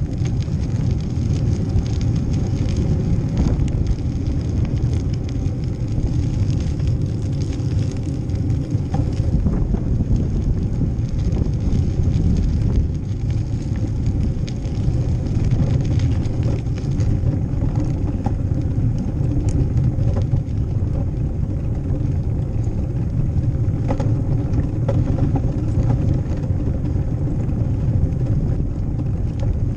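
Steady low rumble of wind buffeting a bike-mounted action camera's microphone, mixed with the bicycle's tyre and rolling noise as it rides, with scattered small clicks and rattles.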